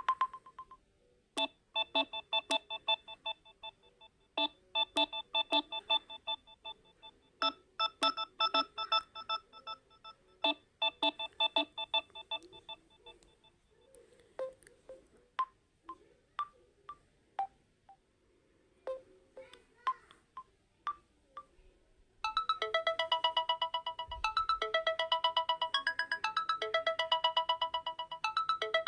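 Built-in ringtones of a Samsung Galaxy A02 smartphone playing one after another: short melodies of clear, plucked-sounding electronic notes separated by brief pauses, then a sparse run of single notes. About three-quarters of the way in, a fast, dense repeating ringtone pattern starts.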